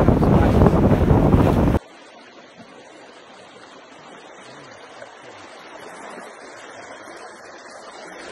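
Loud wind buffeting the microphone on a boat at sea, which cuts off abruptly about two seconds in. Then the much quieter steady rush of a shallow creek flowing.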